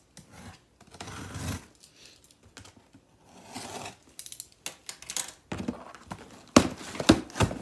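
Hands working a cardboard shipping box: irregular scraping, tearing and rustling of the cardboard and packing tape, with a few loud sharp knocks near the end.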